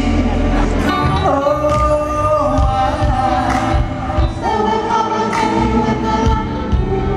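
Live R&B band: a woman's lead vocal holds long, high notes, stepping down in pitch, over the band with backing singers.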